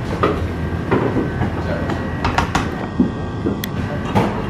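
Steady low mechanical hum with a few light clicks and knocks, as a spatula spreads pastry cream in a metal tray.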